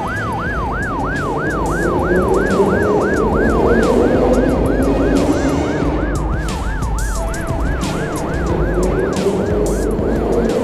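Ambulance siren of a cartoon medical-service train in a fast yelp, about three rising-and-falling sweeps a second, over a lower tone that slowly swells and fades.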